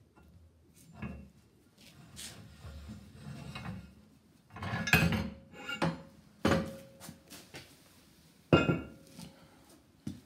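Steel parts of a home-built Puckle gun clanking and knocking as they are handled on the mount: a series of metallic knocks, some with a short ring. The loudest come about five, six and a half and eight and a half seconds in.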